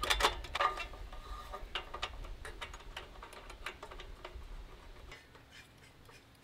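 Light metallic clicks and clinks as a butane canister is unlatched and lifted out of a portable camp stove's fuel compartment and the fuel fitting is handled. They are loudest in the first second and grow fainter, with a low wind rumble on the microphone that cuts off about five seconds in.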